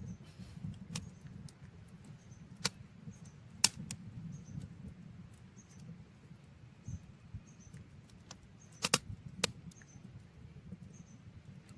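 Wood fire crackling, with sharp irregular pops over a low steady rumble; the loudest pop comes a few seconds in and a close pair near the end.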